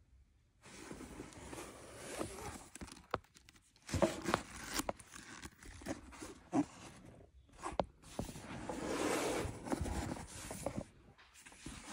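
A Louis Vuitton handbag being handled by hand: rustling of the bag's lining and leather trim with scattered clicks and knocks, and a longer stretch of rustling near the end.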